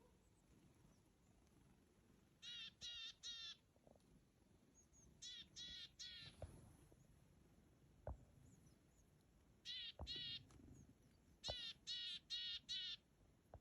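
A crow cawing in four series of harsh calls: three, then three, then two, then four caws. A few faint knocks fall between the series.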